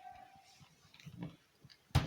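Small kit parts handled by hand as a rubber waterproof ring is fitted onto an ultrasonic sprayer disc: faint rubbing and fumbling, then one sharp click near the end.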